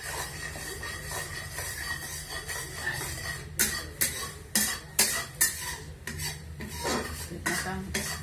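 A spoon or spatula stirring in a metal cooking pan, scraping and clinking against its sides. The clinks come sharpest and about every half second through the middle, over a steady low hum.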